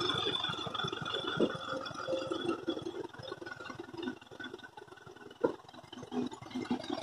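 Massey Ferguson 85 tractor engine running with a fast, even clatter that fades as the tractor drives away, with a sharp knock about five and a half seconds in.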